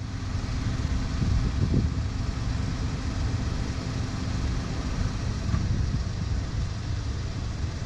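Steady low rumble with a light hiss around a parked car, with no distinct events.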